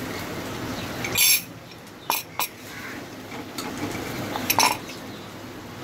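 Cornflour-and-water slurry poured from a glass jug into a kadai of simmering chicken gravy, with a brief loud hiss about a second in, followed by a few clinks of a steel spatula and the jug against the pan.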